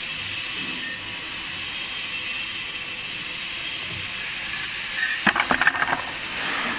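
Steel parts of a feed pellet mill's ring die assembly clinking and rattling in a quick cluster about five seconds in, after a single knock about a second in, over a steady hiss.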